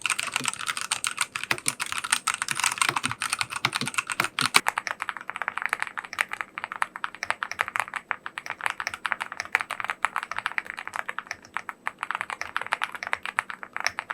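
Fast typing on mechanical keyboards, a dense run of keystrokes. About four and a half seconds in, the typing turns duller and less crisp as a different keyboard takes over.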